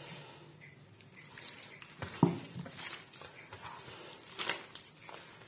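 Gram flour, chopped onion and spices being mixed by hand in a steel bowl: soft rubbing and squishing, with a louder knock about two seconds in and a sharp metallic clink a little past four seconds.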